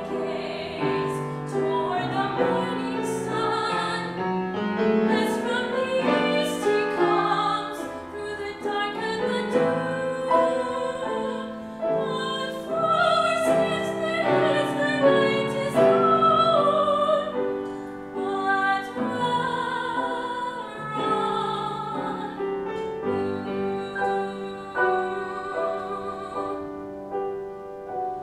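A female classical singer, trained in operatic style, sings an art song with vibrato over a grand piano accompaniment.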